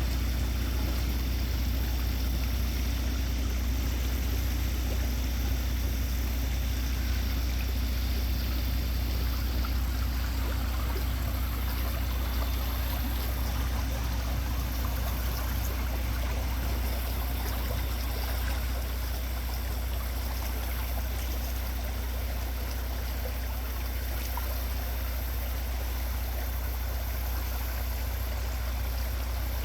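River water flowing steadily over a riffle, an even rushing sound, with a steady low rumble underneath.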